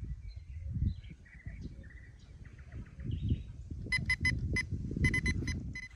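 Birds chirping, then about four seconds in an electronic bite alarm on the rod stand sounds a fast, uneven run of about ten high beeps, the signal that a fish is pulling line. Low wind rumble on the microphone underneath.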